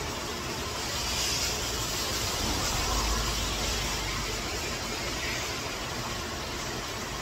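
Steady rushing of heavy rain and a swollen, fast-flowing stream in flood, swelling slightly in the middle.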